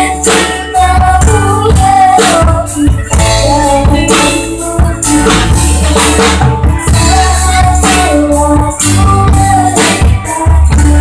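A young child singing a melody over loud backing music with heavy bass, drums and tambourine-like percussion.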